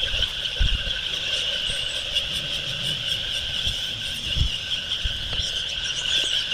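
Soft wash spraying equipment running: the low-pressure spray of biocide solution gives a steady high-pitched hiss, with a few soft low knocks underneath.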